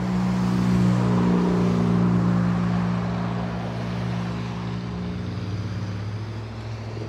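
An engine running steadily at idle: a low, even hum that holds one pitch and eases slightly near the end.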